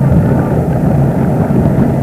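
Loud, steady low rumble of wind buffeting the microphone, mixed with the running of a boat's motor.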